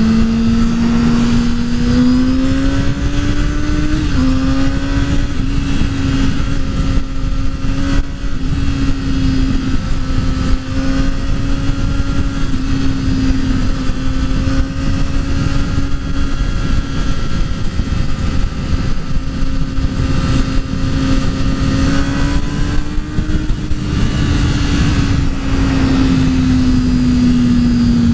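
Kawasaki Ninja ZX-6R sport bike's inline-four engine running steadily under way. Its pitch climbs a little in the first few seconds, dips briefly, rises again later and falls away near the end. Heavy wind rush on the microphone underneath.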